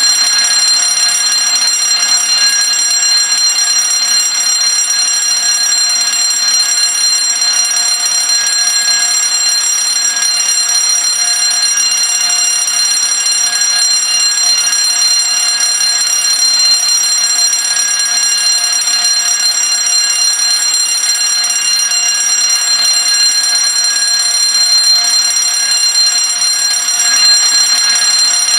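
Fire alarm bell ringing continuously without a break, a steady high metallic ring.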